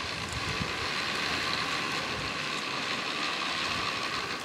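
Steady whirring hiss of a skybike rolling along its cable, its pulley wheels running on the line as it is pedalled.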